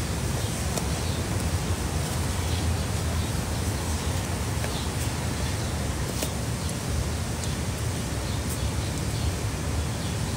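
Steady outdoor background noise: a low rumble and hiss, with a few faint high ticks.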